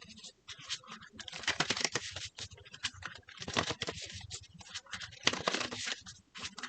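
Tarot cards being shuffled and handled: a run of quick papery clicks and rustles that comes in several bursts.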